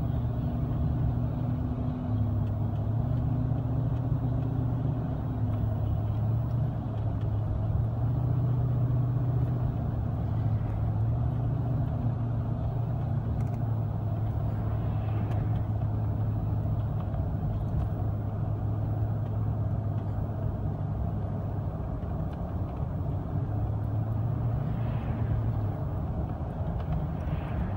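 Steady engine hum and tyre noise on the road, heard inside the cabin of a moving car.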